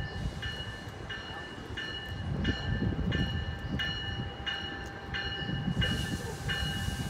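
A train's bell ringing steadily, about one and a half strokes a second, over the low rumble of a train at the platform. A hiss of air comes in near the end.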